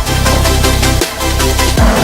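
Background electronic dance music with a heavy bass line and a steady beat.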